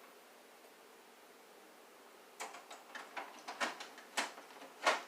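Plastic clicks and knocks as an HP 65 colour ink cartridge is handled and pushed into the printer's carriage. A string of a few sharp clicks starts a couple of seconds in and gets louder near the end.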